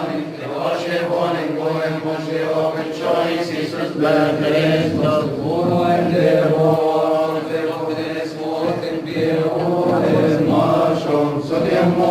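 Coptic Orthodox hymn chanted by a man's voice: a long melismatic passage of held, slowly winding notes with no clear words.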